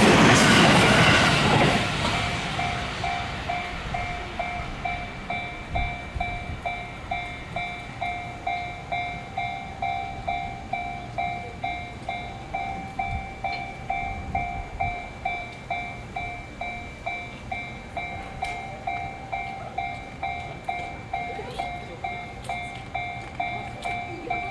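A train passing over a Japanese level crossing, its noise fading out about two seconds in, while the crossing's warning bell keeps ringing with an even electronic ding about twice a second.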